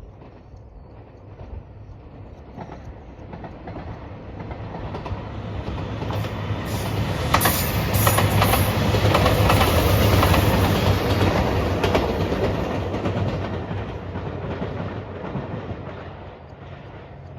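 A train passing at speed: it grows louder to a peak about eight to eleven seconds in, with wheels clacking over rail joints, then fades away.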